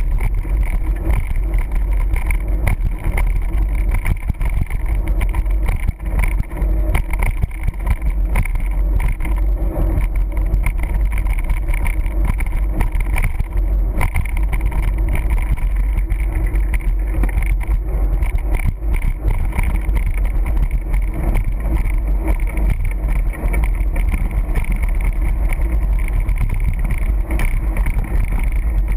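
Loud steady low rumble of wind buffeting the camera's microphone, mixed with the hum of 29er mountain-bike tyres rolling fast on asphalt, with small scattered knocks from the bike over the rough road surface.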